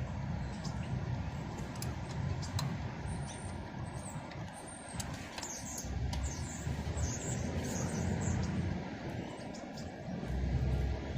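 Small birds chirping in short high calls over a low, steady outdoor rumble, with a few sharp clicks in the first seconds.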